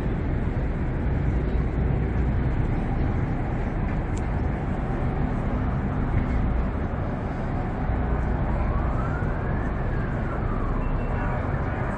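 Steady low rumble of city traffic and harbour activity, with a single siren wail that rises and falls about eight and a half seconds in.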